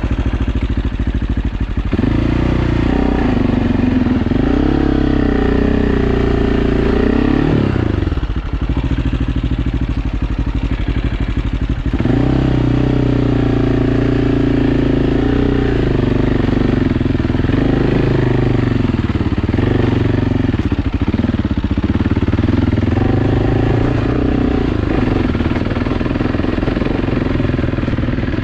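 AJP PR7's single-cylinder engine being ridden off-road, its pitch rising and falling as the throttle opens and closes. The engine sound drops off briefly about two, eight and twelve seconds in.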